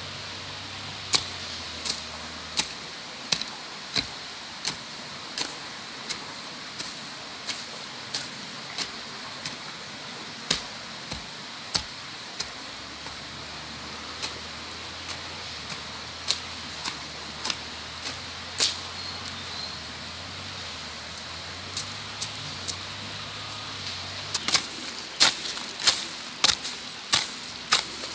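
Hoe blade chopping into soft garden soil in a steady rhythm, about one strike every 0.7 s. Near the end the strikes come faster and louder.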